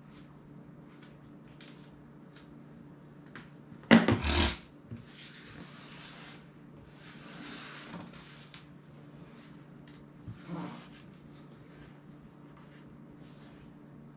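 Handling noises on a tabletop as a phone and a power bank are picked up and set down: a loud knock with a short clatter about four seconds in, stretches of rubbing and rustling, and a smaller knock about ten seconds in.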